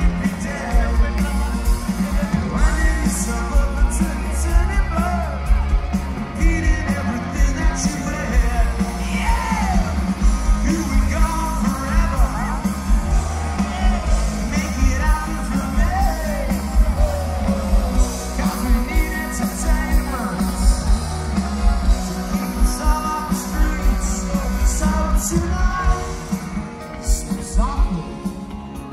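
Indie rock band playing live through a big outdoor PA, heard from within the audience, with singing and yelling over drums and heavy bass.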